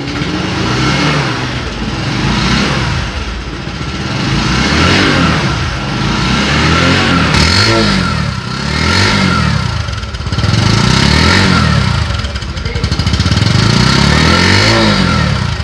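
Bajaj Discover 125's single-cylinder four-stroke engine free-revving with the bike standing still. The pitch rises and falls several times as the throttle is blipped and let back to idle.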